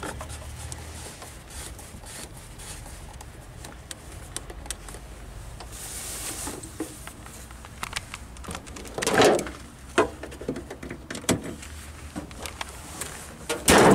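Handling noises around a car's engine bay: rustling and light clicks, a loud knock about nine seconds in, and near the end the bonnet being lowered and shut with a thud, over a low steady rumble.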